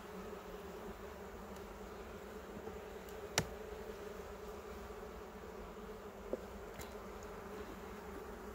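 Steady hum of a honeybee colony buzzing in an opened hive. A sharp click about three and a half seconds in and a fainter one a few seconds later, from the metal hive tool levering the wooden frames apart.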